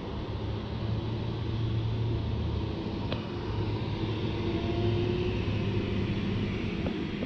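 Box truck's engine running as it pulls out and drives along the road, a steady low rumble.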